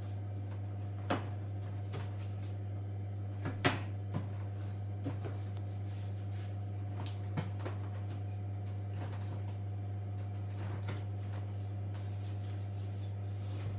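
Light clicks and knocks of washing-machine parts and tools being handled during repair, scattered and irregular, the loudest about four seconds in, over a steady low hum.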